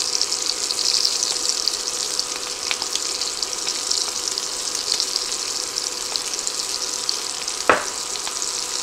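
Pork chops searing in hot oil and butter in a cast iron skillet: a steady crackling sizzle, with one short knock near the end.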